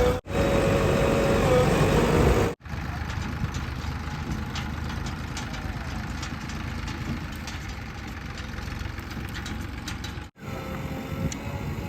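Diesel engine of a JCB 3DX backhoe loader running steadily, with a high whine over it in the first couple of seconds and again near the end. The sound breaks off abruptly about two and a half and ten seconds in, where clips are joined.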